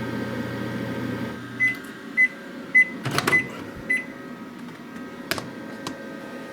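Panasonic inverter microwave oven running with a steady hum that stops about a second in, followed by five short beeps signalling that the cooking cycle has ended. A few sharp clicks and knocks come midway.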